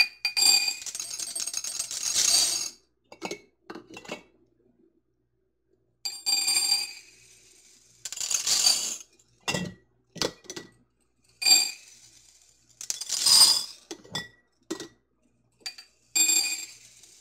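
Dry lentils poured from a measuring cup into glass quart canning jars, one jar after another: about six rattling pours of a second or two each, with the glass ringing under them. Short clinks of the cup against the jar rims come between the pours.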